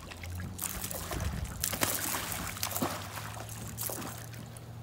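Water splashing and sloshing in several bursts, over a steady low hum that starts just after the beginning.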